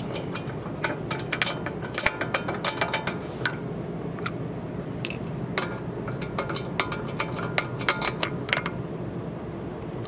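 Steel lug nuts spun off the wheel studs by hand and gathered up, a scatter of sharp metallic clicks and clinks, some ringing briefly, in two flurries.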